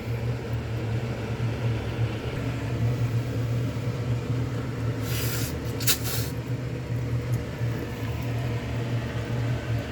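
Steady low mechanical hum, with two short slurps of ramen noodles being tasted about five and six seconds in.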